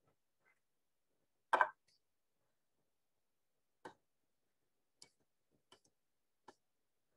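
A handful of short, irregular clicks and knocks, the loudest a double knock about one and a half seconds in, with dead silence between them.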